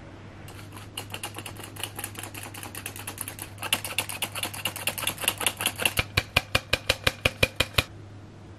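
Stainless steel hand-operated flour sifter clicking rapidly as flour and baking powder are sifted through it, about five clicks a second, louder in the last two seconds and stopping suddenly near the end.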